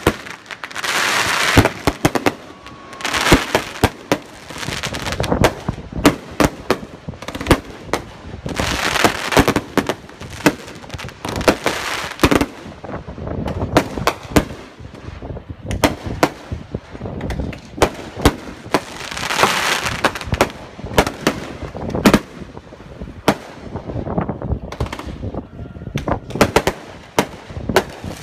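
Fireworks display going off: a fast, irregular string of sharp bangs and pops, with a few louder stretches of dense hissing crackle.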